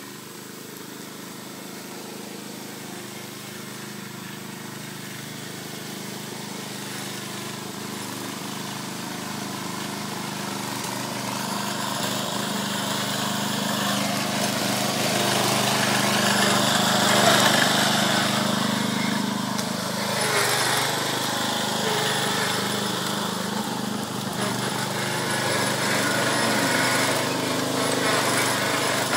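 Lawn mower engine running steadily, growing gradually louder through the first half and loudest a little past halfway, then staying loud.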